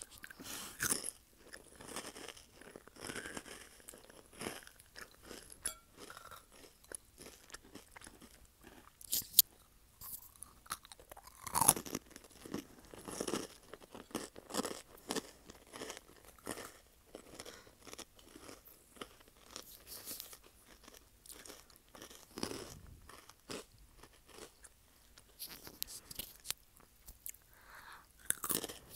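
Close-up chewing of candy into a wired earphone microphone held at the mouth: many irregular short, sharp clicks and mouth noises.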